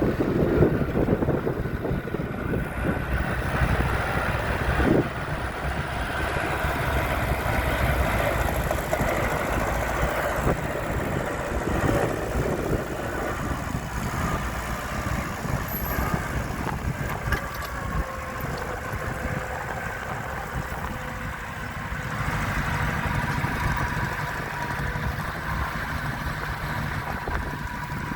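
Engine of a vintage BMB President horticultural tractor running steadily.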